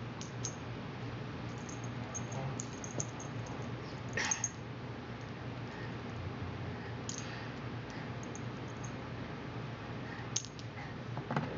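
A cat's collar bell and tag giving scattered, faint jingles and clicks as a small hand fingers the collar, the strongest about four seconds in, over a steady low hum.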